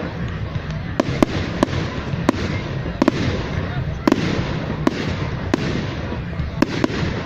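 Fireworks going off at a display: about a dozen sharp cracks at irregular intervals over a continuous crackling rumble.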